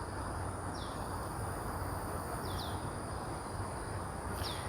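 Outdoor ambience: a steady high-pitched insect drone over a low background hum. A bird's short falling chirps repeat every couple of seconds, twice as a quick pair.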